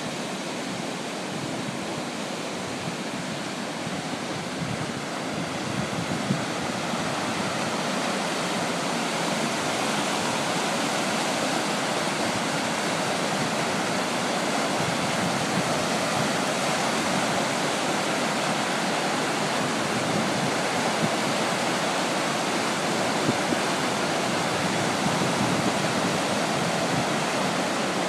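Turkey River rock arch rapids running high after heavy rain: a steady rush of whitewater, growing louder over the first several seconds and then holding even.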